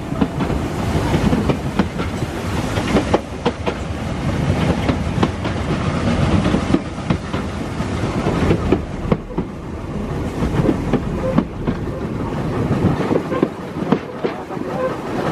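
Vintage train running along the track, heard from an open platform close behind the locomotive: a steady rumble of wheels on rail, with the clickety-clack of rail joints and many short knocks and rattles.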